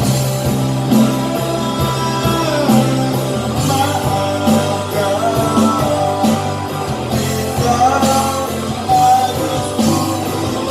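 Live band music from a pop ballad: guitar and bass over a steady beat, with a lead melody line that bends and glides in pitch.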